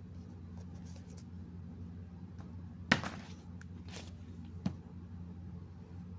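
Handling noises from unboxing: a sharp click about three seconds in and a lighter one near five seconds, with faint rustling, over a steady low hum.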